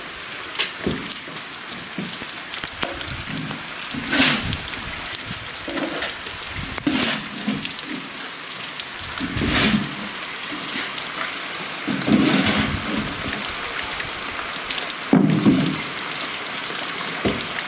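Heavy rain falling steadily, with occasional knocks and scrapes every two to three seconds, the loudest in the second half.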